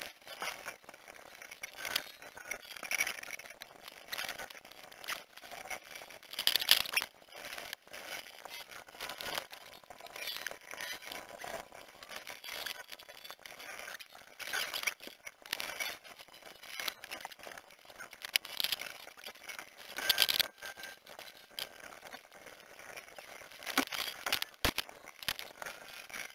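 Garage work sounds from an engine-removal teardown, sped up about thirty times: a dense, irregular jumble of short, high-pitched clicks, rattles and crinkles, with nothing low in pitch.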